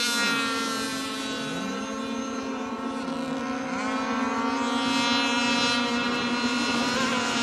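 Engines of radio-controlled racing boats running flat out on the water: a steady high-pitched engine whine, with the pitch swinging down and back up a few times as individual boats pass.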